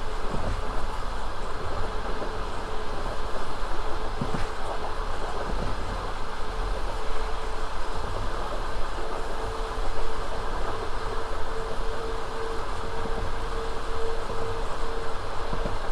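Passenger train under way: steady rolling noise of the carriage wheels on the rails, with occasional knocks from the rail joints and a steady hum that grows stronger in the second half.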